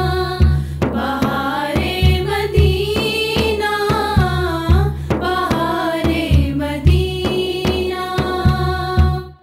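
A woman singing a naat, a devotional song, into a microphone, her voice gliding and wavering through long melodic lines. Frame drums beat a steady low rhythm of about two to three strokes a second beneath her. The sound breaks off abruptly at the very end.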